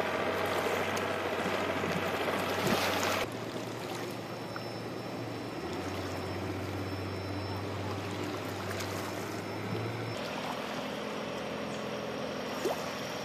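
Outboard boat motors idling, a steady low hum, with water lapping and splashing around the boats; the hum and wash change abruptly a few times.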